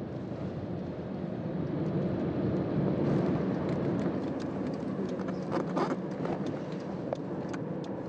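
Road and engine noise of a moving car heard from inside, a steady rumble with a few light clicks.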